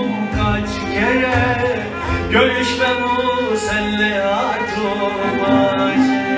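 Music from a slow Turkish love song: a man's voice singing at a microphone over a backing with strings, including violin.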